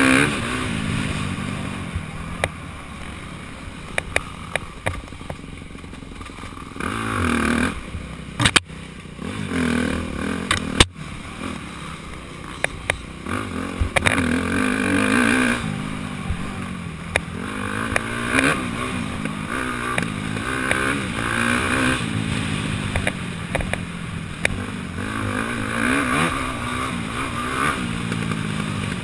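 Dirt bike engine revving up and down again and again as the rider works through the gears on a rough trail, with a few sharp knocks in the middle.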